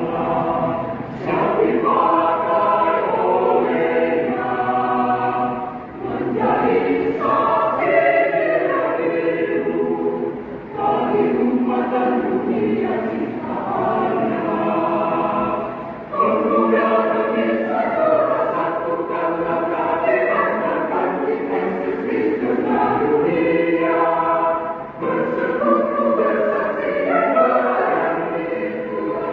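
Youth choir singing in parts, with a few short breaks between phrases.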